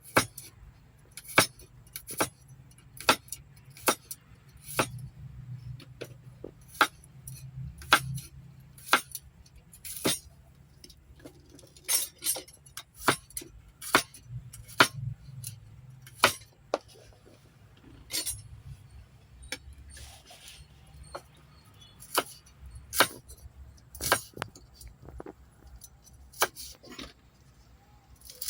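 Cooking utensils and cookware clinking and knocking in irregular sharp clinks, roughly one or two a second, over a low steady hum.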